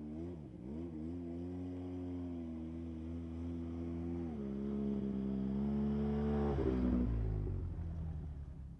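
Polaris ATV engine coming up the trail, its pitch dipping briefly as the throttle eases and picking up again, then rising and getting louder as it closes in. It passes close by near the end, the pitch dropping as it goes past, and fades away.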